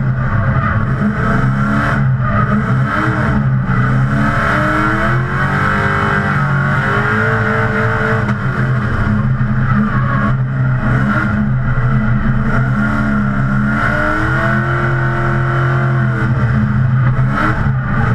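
GM LS2 6.0-litre V8 of a drift-built Nissan 350Z, heard from inside the cabin, running hard with its pitch rising and falling again and again as the throttle is worked through the drift. A steady tyre squeal runs under the engine.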